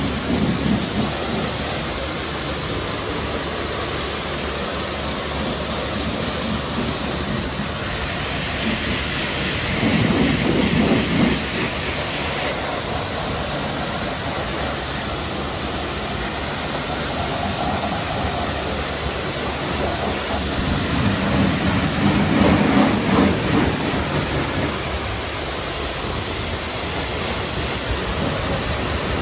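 Water spray washing down a car's bodywork: a steady hiss that swells deeper and louder a few times.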